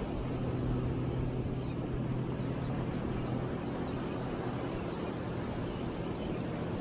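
Steady low engine hum under rough wind-like noise, with a small bird giving short, high, downward-sliding chirps again and again through the middle.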